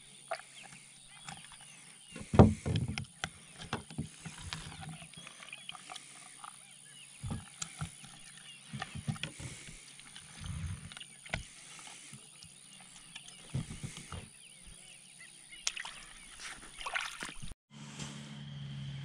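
Knife slitting a fish's belly and hands pulling out its guts on a plastic kayak hull: scattered, irregular knocks and scrapes, the loudest knock about two and a half seconds in.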